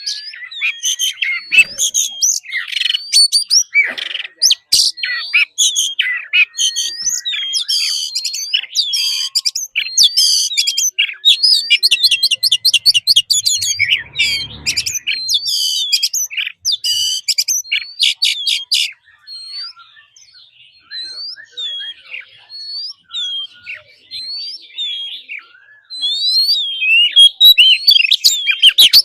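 Oriental magpie-robin singing a varied song of clear whistles, rapid trills and short hooked notes. The song is dense for most of the time, thins out for several seconds, then comes back loud near the end.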